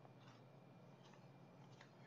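Near silence with a faint steady low hum.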